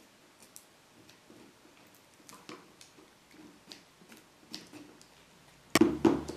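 Scissors snipping small pieces of foam scouring pad, heard as faint, scattered clicks of the blades, then a louder knock near the end as the scissors are put down on the wooden board.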